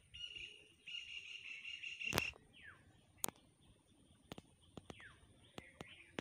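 A frog calling: a high buzzing trill for about two seconds, broken briefly near the start. It ends in a sharp click, and then come a few more scattered clicks and a couple of short falling chirps.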